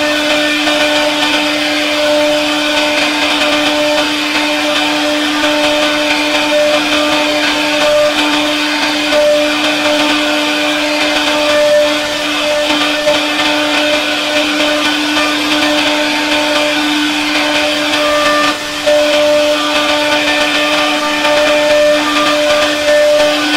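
CNC router spindle running at a steady high pitch while its bit carves into a solid wood door panel. A cutting hiss and higher overtones come and go as the bit moves through the wood, with one brief dip in level about three quarters of the way through.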